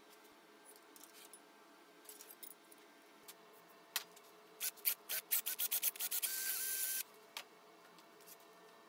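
Aerosol spray can: a quick run of short bursts about halfway through, then one steady hissing spray of just under a second.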